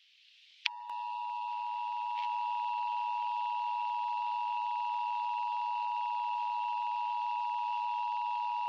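Emergency Alert System two-tone attention signal, a steady electronic tone starting with a click about a second in and holding unchanged, with a fainter high tone above it.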